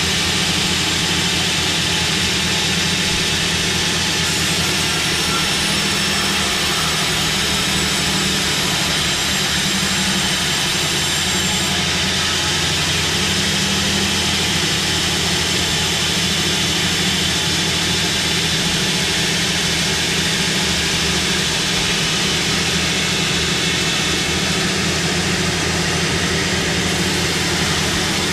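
Sawmill saw running steadily with a continuous loud mechanical drone and hum. Faint high whining tones come in about four seconds in and fade out around twelve seconds.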